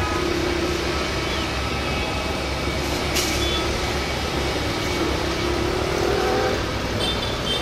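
Airbus A320 jet engines running at low thrust as the airliner taxis and turns on the runway: a steady rumble with an engine whine that rises slightly about five to six seconds in. A brief sharp click about three seconds in.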